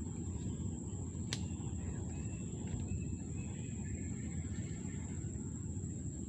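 Mangrove riverbank ambience: a steady high-pitched insect drone over a low rumble, with one sharp click about a second and a half in.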